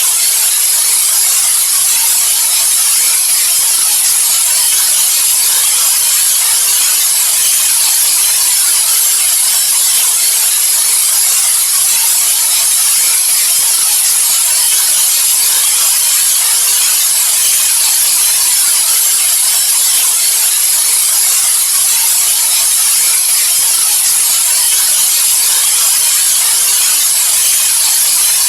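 Steady, unchanging hiss of synthetic white noise for sleep, bright and high-pitched with little bass.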